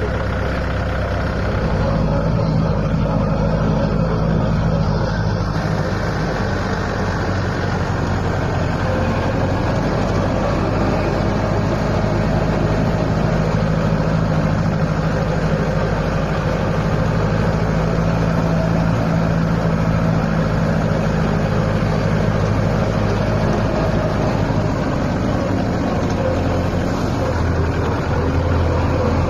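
Farm tractor engine running steadily as the tractor drives along, heard from the seat. Its note rises and gets a little louder about two seconds in.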